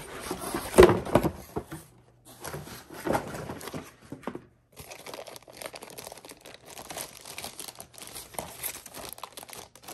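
Product packaging being opened by hand, rustling, crinkling and tearing, with a knock about a second in that is the loudest sound.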